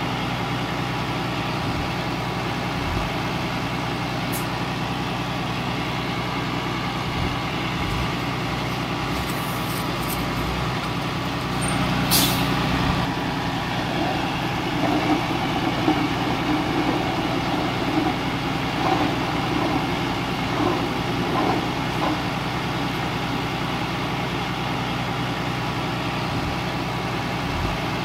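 Diesel engine of heavy construction machinery running steadily, with a short, sharp hiss about twelve seconds in. After the hiss come several seconds of louder, uneven rumbling and knocking.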